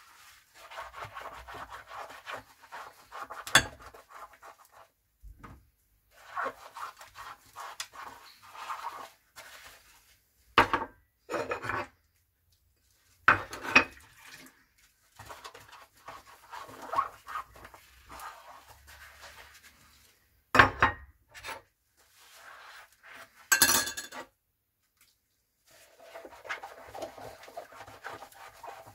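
Dishes being hand-washed in a sink: a soapy sponge scrubbing ceramic cups and bowls in uneven stretches. About five sharp clinks come as dishes knock against each other or the sink, with short pauses between.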